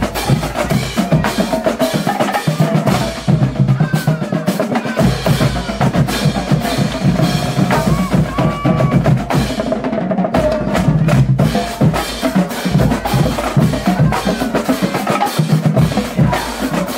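Marching band drumline playing a steady cadence: bass drums, tenor drums and cymbals in continuous, dense drumming.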